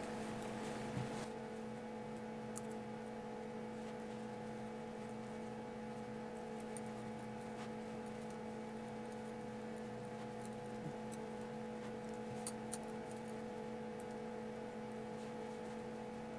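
Steady electrical hum with a few faint clicks of metal double-pointed knitting needles touching as stitches are worked.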